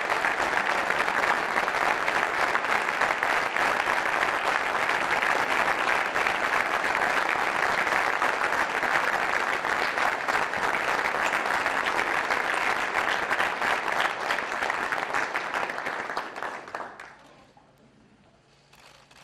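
Audience applauding steadily, a dense patter of many hands clapping, which dies away quickly about seventeen seconds in.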